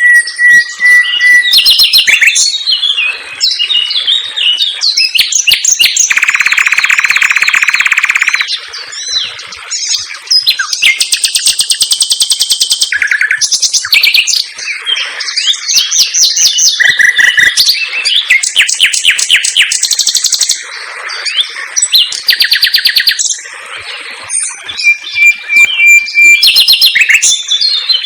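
Common nightingale singing a loud, varied song in quick phrases: a steady whistle at the start and again near the end, rapid-fire runs of repeated notes, and dense buzzy phrases of a second or two, with short pauses between them.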